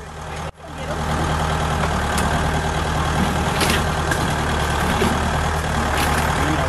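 Ford New Holland 1920 compact tractor's diesel engine idling steadily, with a few short knocks.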